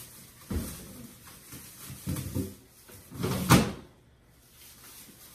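Someone rummaging in an open refrigerator: a few knocks and clatters, then a louder half-second noise about three and a half seconds in, like a drawer or shelf item being slid out.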